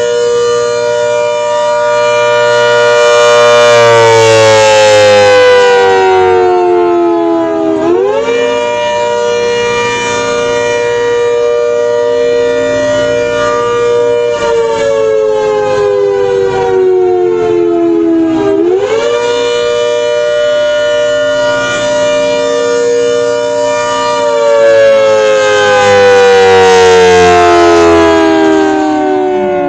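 ACA Hurricane 130 electromechanical outdoor warning siren sounding the attack signal: a loud rising-and-falling wail. Its pitch climbs quickly, holds for several seconds, then slides slowly down, in cycles of about ten seconds.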